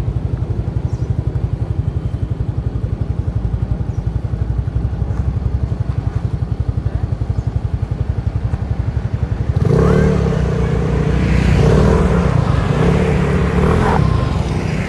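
Small motorcycle engine idling close by with a fast low pulse. About ten seconds in, a passing motorbike's engine grows louder for about four seconds, its pitch rising and dropping in three stretches, then fades.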